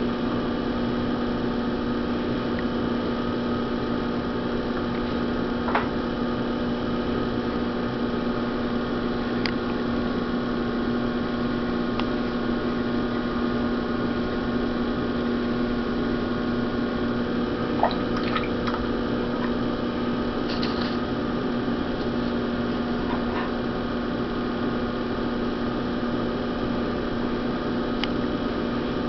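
Electric potter's wheel running with a steady hum, under faint wet sounds of hands working the clay as the opening is widened. A few soft clicks now and then.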